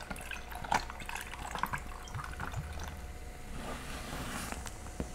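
Ginger beer poured from a glass bottle into a tumbler, the liquid splashing and filling it, with a hiss that swells toward the end. A few light clicks in the first two seconds.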